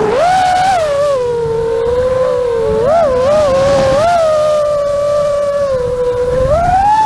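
Multirotor drone's motors and propellers whining, the pitch rising and falling as the throttle changes and climbing near the end, with wind rumble on the microphone.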